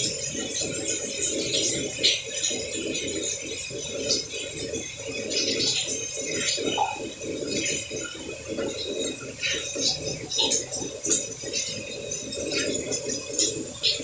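Light trickling water: a continuous flickering burble with many small, irregular drips and splashes.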